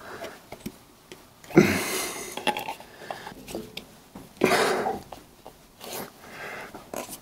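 A rubber coolant hose being pushed and twisted onto metal fittings: rubbing and scraping of rubber, with two louder scrapes of about half a second each, about one and a half and four and a half seconds in, and small clicks between.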